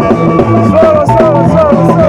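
Band music with a drum kit, a bass line and a lead melody whose notes slide down in pitch.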